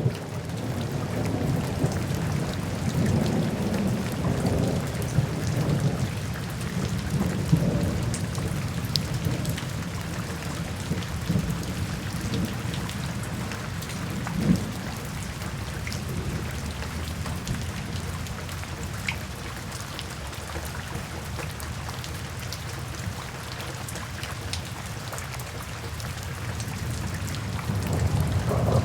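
Steady rain with scattered drops, under deep rolling thunder that rumbles through the first several seconds, dies down and builds again near the end.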